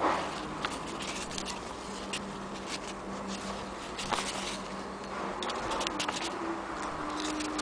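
Pages of an old paper instruction booklet being handled and turned: scattered light rustles and small crisp ticks of paper, with a cluster about four seconds in and another near six seconds.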